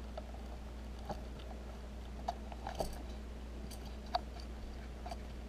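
Small scattered clicks and taps, about six of them, as fingers work a stripped copper wire under the terminal screw of a plastic replacement plug, the sharpest about four seconds in. A steady low hum runs underneath.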